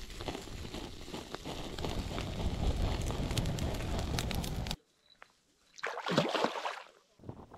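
Water sloshing and splashing with scattered clicks, cutting off abruptly a little under five seconds in; two shorter rushes of similar noise follow.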